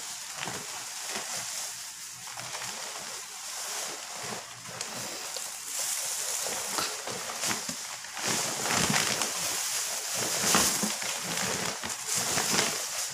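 Thin plastic shopping bags rustling and crinkling as hands work them open and pull them off a potted plant. The rustling is irregular and grows louder in the second half.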